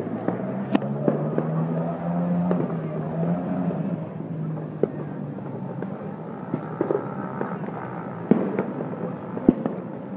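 Fireworks going off: scattered sharp bangs and crackles at irregular intervals, the two loudest near the end, over a steady low hum.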